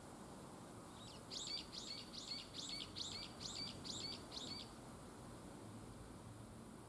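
A small bird singing a run of about nine quick repeated notes, a little over two a second, lasting nearly four seconds, over a faint steady outdoor hiss.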